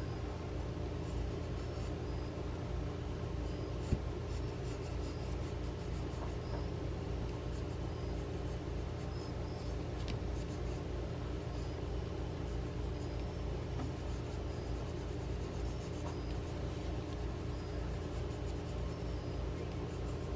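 Pencil scratching across paper in short repeated strokes as vertical and horizontal lines are drawn, over a steady low hum. A single sharp click comes about four seconds in.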